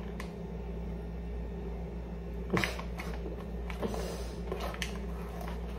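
Foil-lined ground-coffee package being opened and handled, giving a few short crinkles and rustles, the loudest about two and a half seconds in, over a steady low hum.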